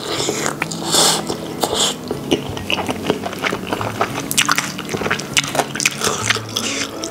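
Close-up biting into a sauce- and cheese-coated fried chicken drumstick, then chewing, with many small sharp wet mouth clicks throughout.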